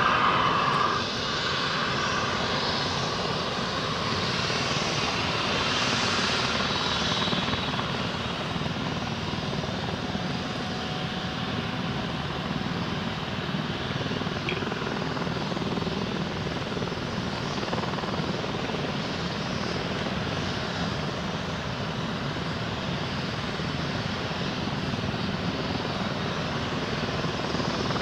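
Helicopter turbine engines and rotors running, a steady rushing whine that is a little louder in the first second.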